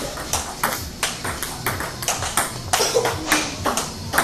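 Table tennis ball clicking back and forth off the paddles and the table during a rally, a sharp tock several times a second.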